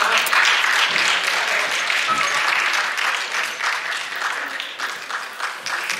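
Audience applause, loud at first and dying away over a few seconds.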